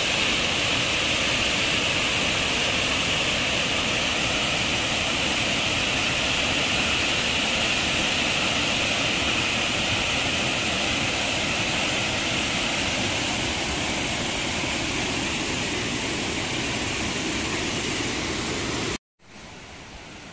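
Waterfall pouring into a rock pool: a steady, loud rush of falling water. Near the end it cuts off abruptly to a much quieter, faint hiss.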